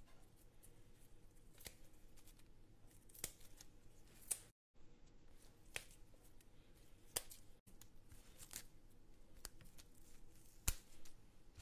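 Faint, scattered light clicks and taps from kitchen utensils, roughly one every second or so, with a brief gap of dead silence about four and a half seconds in.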